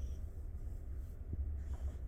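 Quiet room tone with a steady low hum and one faint click a little over a second in.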